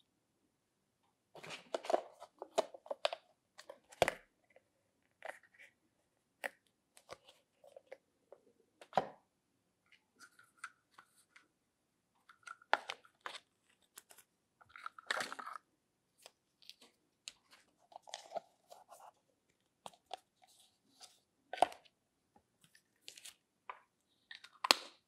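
Hard plastic toy kitchen pieces being handled: irregular clicks, clacks and short scrapes as small pots, lids and cups are picked up, fitted together and set down on a table.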